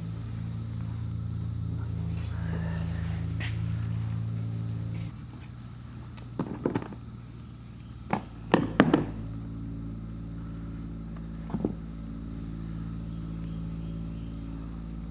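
A steady low electrical hum that drops in level about five seconds in, with a handful of sharp knocks and clanks of metal parts being handled and fitted, the loudest cluster around eight to nine seconds in.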